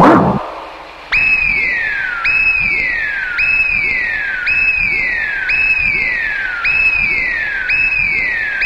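Electronic science-fiction sound effect for a flying saucer: a high tone that falls in pitch over about a second and repeats again and again, like a slow siren. A short, loud, sudden sound comes right at the start, before the tone begins.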